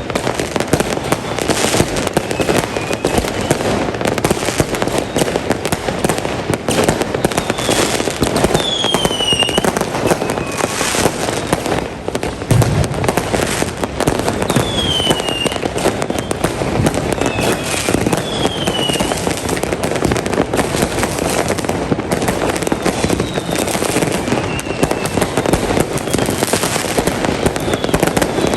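Continuous New Year's Eve fireworks: a dense, unbroken barrage of bangs and crackling, with short whistles that fall in pitch every few seconds.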